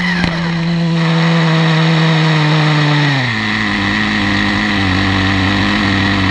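Small two-stroke nitro glow engine of an RS4 3 radio-controlled car idling with the car at rest, a steady buzz that settles to a lower idle speed about three seconds in.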